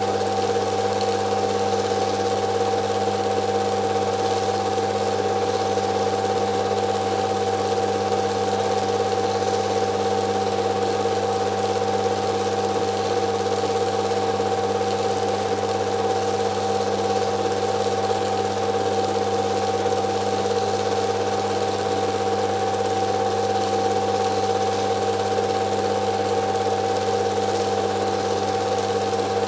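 Film projector running: a steady, unchanging mechanical whir over a constant hum.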